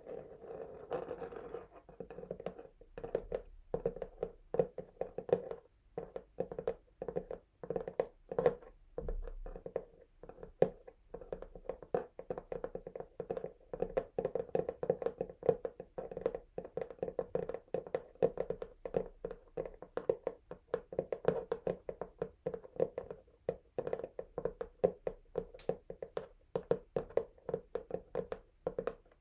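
Fingernails tapping quickly and irregularly on a textured cardboard box, with some scratching. The taps are short and sharp, and the box rings hollow under them.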